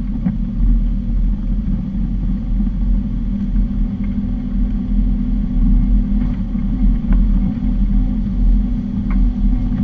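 4x4 SUV driving at a steady low speed on a rough dirt track, heard from inside the cab: a steady engine and tyre rumble, with a few light knocks and rattles from the body and suspension over the bumps.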